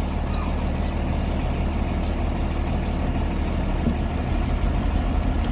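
Heavy diesel engine of road-building machinery running steadily at low speed, an even low drone.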